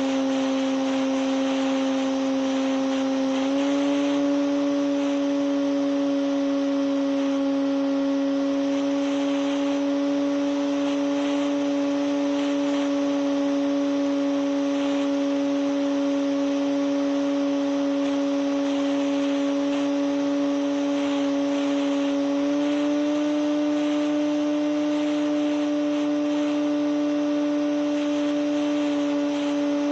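Electric motor and propeller of an RC model Cessna 150 float plane whining steadily in flight, heard from a camera on the airframe, over a steady hiss. Its pitch steps up slightly about three seconds in and again about two-thirds of the way through.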